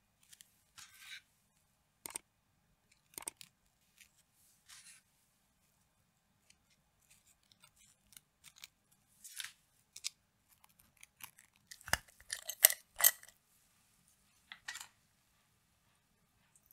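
Crisp waffle cones clicking and rasping against each other and against the cake as they are set in place by gloved hands: scattered brief dry scrapes and taps, busiest and loudest about twelve to thirteen seconds in.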